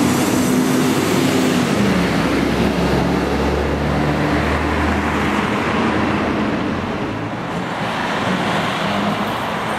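Road traffic with a W-class tram running along street tracks and a car passing close by. A steady mix of vehicle noise with a low hum that shifts in pitch.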